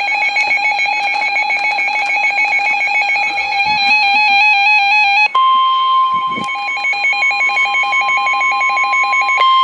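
Music with a quickly stepping melody, then about five seconds in the steady NOAA Weather Radio warning alarm tone cuts in over it and holds, announcing an emergency alert. The music stops shortly before the end while the tone carries on.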